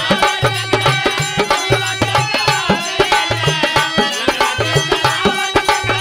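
Bhojpuri birha folk music, instrumental passage: hand drums play a fast, steady beat with a repeating bass pulse under a melodic instrument line.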